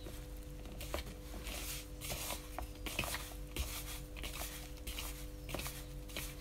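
Hands tossing and squeezing floured chicken feet skin in a bowl: irregular scrunching and rustling with a few sharp clicks, over a steady low hum.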